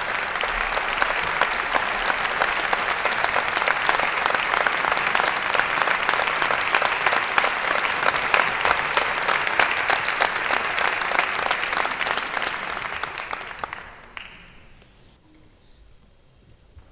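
Concert hall audience applauding the conductor as he bows before the first piece, a dense clapping that dies away about fourteen seconds in.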